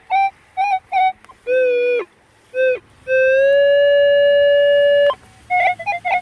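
Metal detector target tones: a run of short, even beeps at one pitch, then a lower tone, then one long steady tone of about two seconds, then quick beeps again. The signal is over a buried target that the detectorist suspects could be a can, though its tone is not the high pitch cans usually give.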